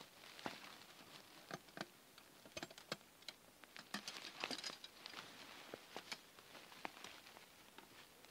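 Faint rustling with irregular small clicks and snaps: dry grass, leaves and twigs being handled close by.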